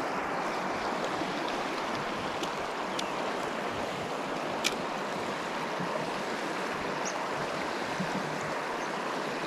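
Small stream rushing steadily over its bed, with one sharp click about halfway through.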